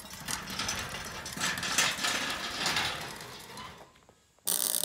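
Rapid metallic ratcheting clicks from a homemade pipe hoist being worked by hand, fading away after about three and a half seconds. Near the end a loud steady hiss starts abruptly.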